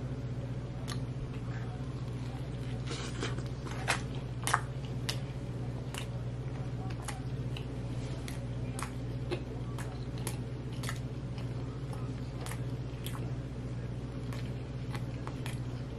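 A person chewing a mouthful of chicken sandwich dressed with blue cheese: a string of small wet clicks and crunches, with two louder ones about four seconds in, over a steady low hum.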